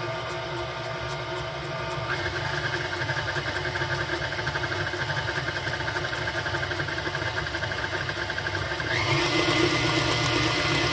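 KitchenAid Artisan stand mixer motor running with a steady whine while its flat beater creams a cream cheese batter in the steel bowl. The speed is stepped up about two seconds in and again near the end, where it runs higher and louder.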